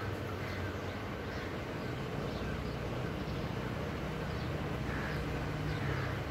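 Steady city background noise through an open window: a constant low traffic hum, with faint short high chirps now and then.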